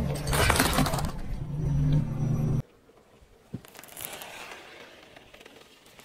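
Car tyre rolling over eggs, the shells crackling and cracking under a steady low hum. It cuts suddenly to a much quieter stretch as the tyre presses on a full plastic Fanta bottle: one sharp click, then faint scraping.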